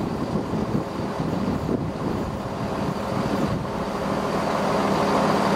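Chiltern diesel multiple unit approaching on curved track, its engines running with a steady hum under wheel and rail noise, getting louder toward the end.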